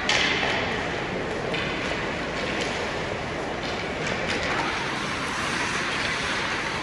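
Ice hockey play on an indoor rink: skate blades scraping and carving the ice, with a louder scrape at the start and a few sharp clacks of sticks and puck over the echoing arena hum.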